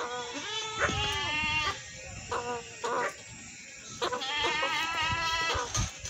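Goat bleating: a long wavering bleat at the start, a few short bleats around two to three seconds in, then another long bleat about four seconds in. A few low thumps near the end.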